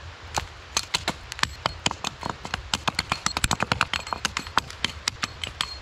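Branches of a fallen tree cracking and snapping in quick, irregular succession as they are broken off, starting just after the beginning.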